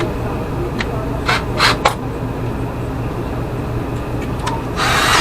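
Steady low mechanical hum, with a few short scraping sounds a little over a second in and a longer scrape near the end.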